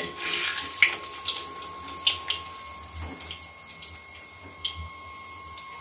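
Puris deep-frying in hot oil in a steel kadhai: a sizzle with many sharp crackling pops, which thin out after about three seconds in.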